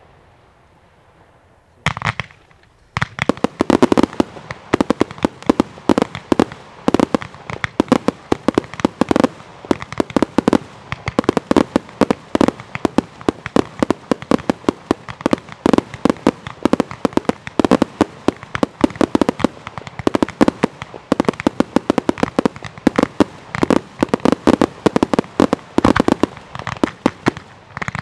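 Aerial fireworks display: quiet at first with a single bang about two seconds in, then from about three seconds a dense barrage of rapid bangs and crackling bursts that keeps going.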